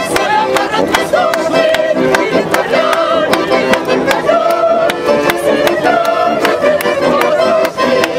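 A live folk song played on two accordions with a guitar, a group of voices singing along in long held notes, and hand claps keeping a steady beat.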